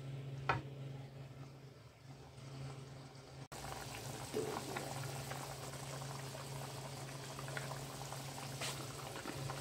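Beef curry boiling hard in a non-stick wok, bubbling and spitting continuously from about three and a half seconds in. Before that a spatula stirs the curry and knocks once against the pan about half a second in. A steady low hum runs underneath.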